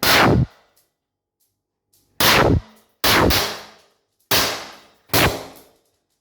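Five shots from a Vesta PDW50 .50-calibre semi-automatic air pistol fired indoors at a wooden board: one right at the start, then four more in quicker succession about two seconds later. Each shot is a sharp crack with a short room echo.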